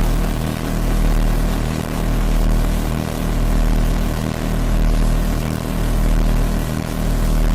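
Cartoon 'dizzy' sound effect: a dense, steady droning whir that swells and fades in a slow pulse about once every second and a quarter.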